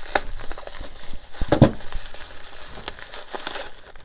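Bubble wrap crinkling and rustling as it is handled and cut open with scissors, with a couple of sharper snaps, the loudest about a second and a half in.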